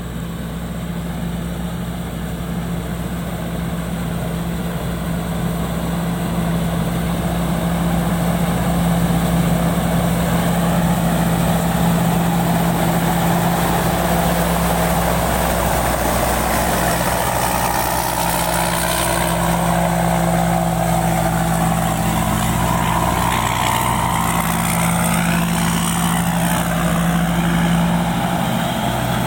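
Pan Charoen combine harvester's engine running steadily under load, growing louder over the first ten seconds or so. In the second half a wavering whine rides above the engine hum.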